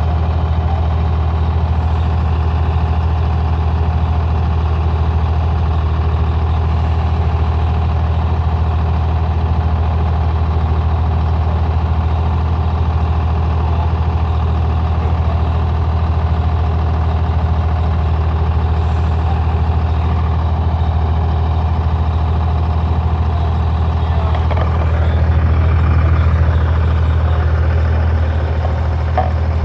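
A large vehicle engine running steadily, a deep even hum that grows slightly louder near the end.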